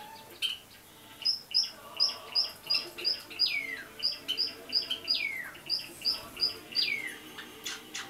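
Java sparrow chick, about a month old, calling: a quick run of short, high chirps, about three a second, broken three times by a longer call that slides down in pitch.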